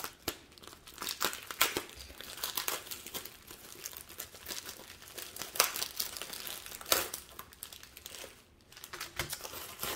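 Packaging crinkling and crackling as it is handled, in irregular bursts of rustle.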